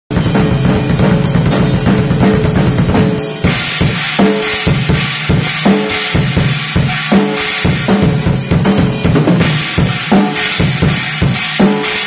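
Acoustic drum kit played hard: about three seconds of fast, dense kick-drum and snare strokes, then a beat of separate drum hits under washing, crashing cymbals.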